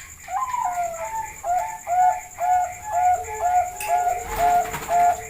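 Bangkok-strain zebra dove (perkutut) cooing: a quick, even run of clear coo notes, about two a second, with a lower held note joining about three seconds in.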